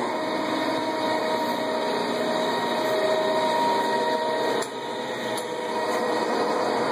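Lodge & Shipley engine lathe running with its spindle under power, just come up to speed: a steady mechanical hum and whine from the motor and headstock gearing, with a brief drop in level a little under five seconds in.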